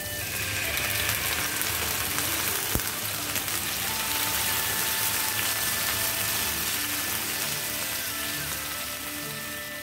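Red lentils (masoor dal) tipped into hot oil with onions and green chilies in a non-stick frying pan, sizzling steadily.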